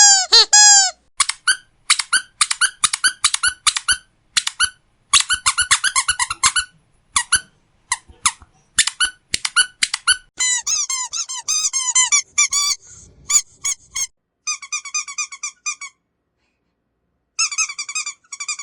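Squeaky dog toy squeezed over and over in quick runs of short squeaks, many of them sliding in pitch. Later comes a run of steadier, lower squeaks, then a pause of about a second and a half before the squeaking starts again near the end.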